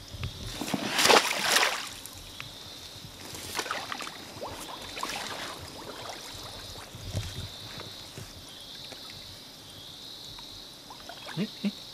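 A woven bamboo fish-cover basket plunged into shallow muddy water with a loud splash about a second in, followed by smaller splashes and sloshing as hands grope in the water inside the basket for fish.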